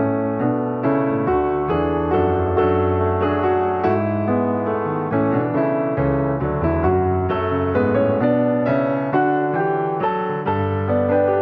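Piano music: a steady stream of single notes and chords, each struck note fading until the next.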